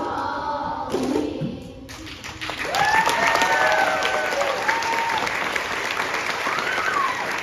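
A children's choir's final sung notes, then from about two seconds in the audience breaks into applause, with cheering and whoops rising over the clapping.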